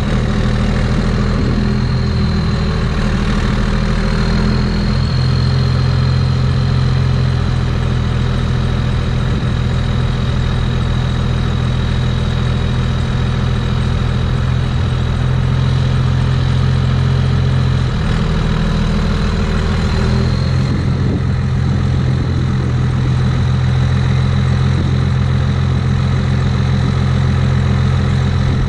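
Second-generation Dodge Ram pickup's engine idling steadily, its note shifting a few times as the truck eases forward, with a thin steady high whine above it.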